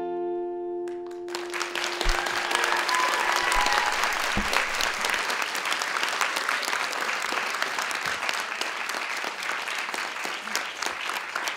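Final acoustic guitar chord ringing out, then a theatre audience starts applauding about a second in and keeps clapping steadily.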